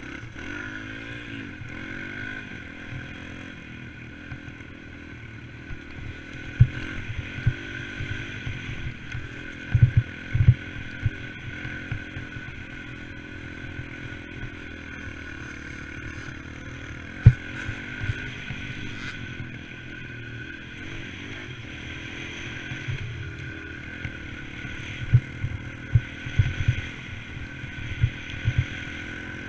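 Dirt bike engine running while riding, its pitch rising and falling with the throttle, heard from a camera mounted on the bike. A few sharp low thumps break in now and then, several of them near the end.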